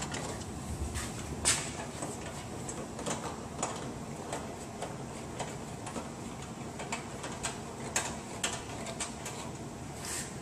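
Scattered light clicks and ticks from a hand screwdriver driving screws into a car's plastic lower radiator splash shield, over steady low room noise.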